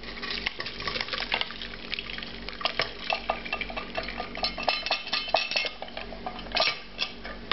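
Dark sauce base pouring from a saucepan into a stainless steel mesh sieve, with many quick metallic clinks and scrapes as the pan knocks against the sieve rim and the soft fruit and vegetables are tipped and scraped in.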